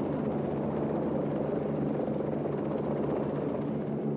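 Lockheed XH-51 rigid-rotor helicopter hovering: steady engine and rotor noise over a constant low hum.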